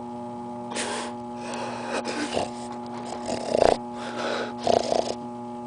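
A person straining and gasping in heavy, ragged breaths, with short groans about three and a half and five seconds in, the loudest moments. A steady hum runs underneath throughout.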